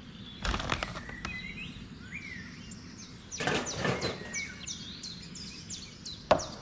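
Small birds chirping and twittering repeatedly, with two short spells of rustling clatter and a single sharp knock near the end.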